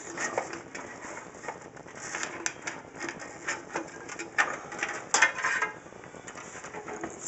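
PC power-supply cables being handled and pushed through a computer case: irregular rustling and small plastic-and-metal clicks, with a louder knock about five seconds in.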